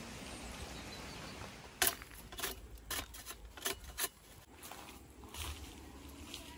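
A knife stripping the rind off a sugarcane stalk: a string of short, sharp cutting strokes starting about two seconds in, one or two a second.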